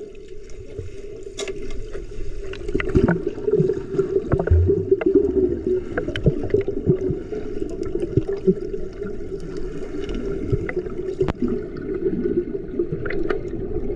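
Water sloshing and gurgling close to the microphone, with scattered small clicks and knocks.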